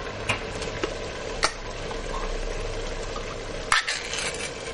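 Mince, vegetables and crushed tomatoes sizzling in a pot on high heat, with a couple of light knocks. Near the end comes a quick cluster of sharp metallic clicks and tearing as the ring-pull lid is pulled off a tin of crushed tomatoes.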